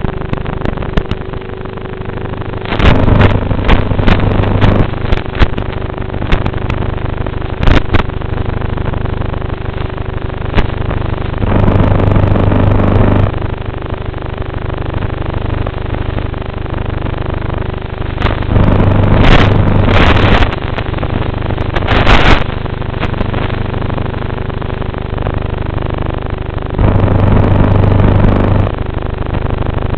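Steady rushing noise of a twin-motor radio-controlled model plane in flight, heard from its onboard camera, swelling much louder about five times, with a few sharp clicks.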